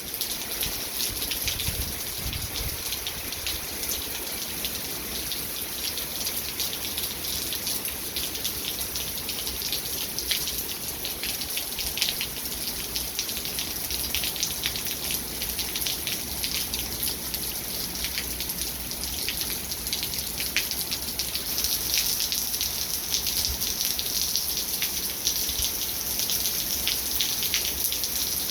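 Steady rain from a hurricane's outer rain bands: a dense, even hiss with countless drops ticking, getting a little heavier about two-thirds of the way through.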